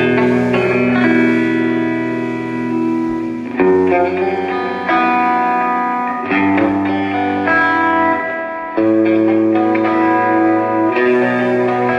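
Live blues-rock band playing loudly, with electric guitar, bass, drums and keyboard, the chords changing every second or so.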